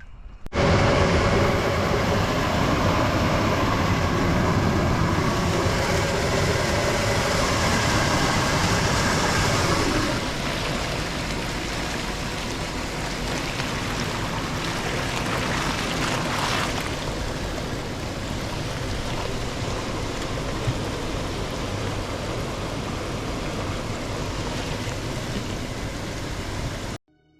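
Jacuzzi running with its water churning and bubbling, a steady rushing noise that starts about half a second in and turns a little quieter about ten seconds in, then stops suddenly near the end.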